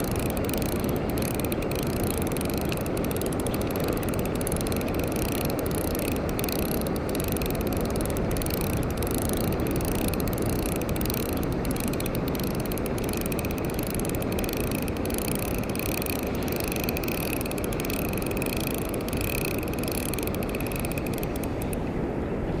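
Ryobi Smurf 1000 spinning reel being cranked steadily, its gears whirring as it winds in line with a squid hooked on the egi lure. The whirring stops just before the end as the cranking stops.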